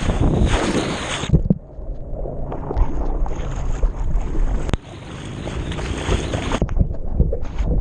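Water splashing and sloshing close around a swimming dog's back-mounted action camera as the dog paddles. The hissing splash sound drops to a duller rumble for about a second, about a second and a half in, and again near the end.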